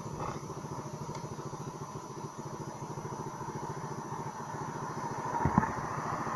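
Honda scooter's engine idling with a steady, rapid pulse. A short thump comes about five and a half seconds in, and the sound grows a little louder near the end.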